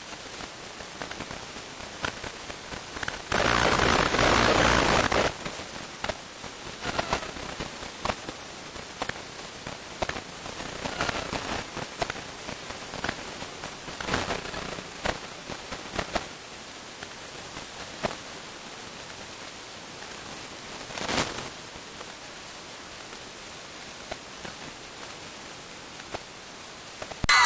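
Steady outdoor hiss, with faint distant shouts from the field. About three seconds in, a louder rush of noise lasts a couple of seconds, and a short sharp sound comes about two-thirds of the way through.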